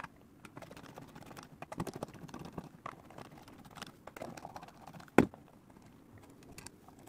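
Screwdriver backing out the small corner screws of a guitar pedal's acrylic back plate, with scattered small clicks and scrapes of metal on screw and enclosure. There is one louder knock about five seconds in.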